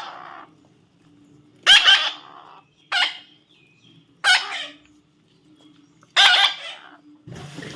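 A baby parrot calling in four separate loud squawks, spaced about a second or more apart, the last one the longest.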